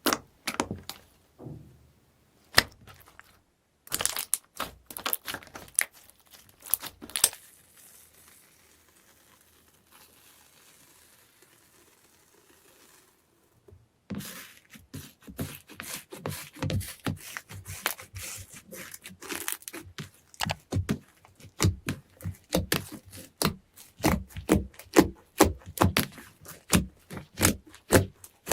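Slime being squeezed and kneaded by hand, giving rapid crackling pops and clicks in bursts, with a quieter pause of several seconds partway through before dense popping resumes.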